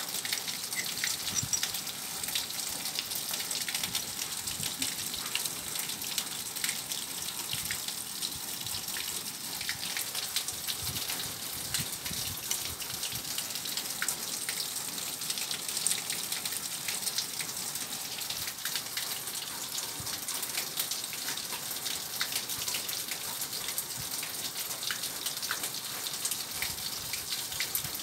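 Steady rushing-water hiss with many small crackles and ticks through it.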